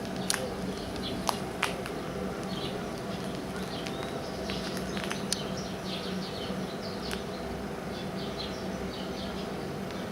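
Small birds chirping over a steady low hum, with a few sharp clicks in the first two seconds.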